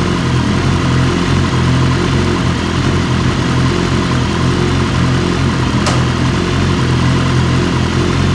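BMW S 1000 RR's inline-four engine idling steadily in neutral, with one short click about six seconds in.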